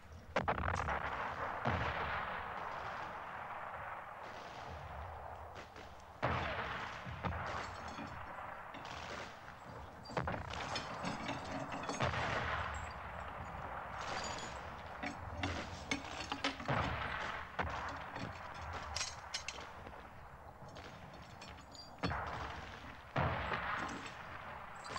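Battle gunfire: heavy machine-gun fire and explosions. A loud report comes every few seconds and trails off, with rattling shots in between.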